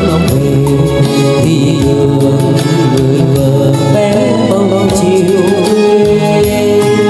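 A man singing karaoke into a handheld microphone over a backing track with a steady beat, played through an Electro-Voice ZLX G2 12P powered speaker with a 12-inch woofer and titanium-dome compression driver.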